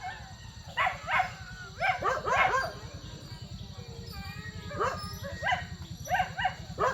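A dog barking in short runs of two to four barks, four times over, with a steady low rumble underneath.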